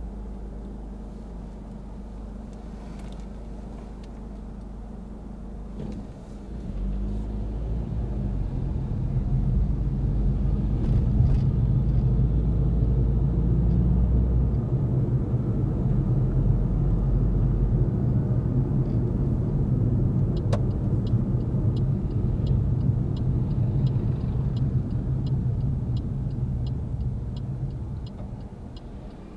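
Car engine and road noise heard from inside the car, growing louder about a quarter of the way in as the car picks up speed and easing off near the end. About two-thirds of the way through, a click is followed by the steady ticking of the turn-signal indicator, set for the coming right turn.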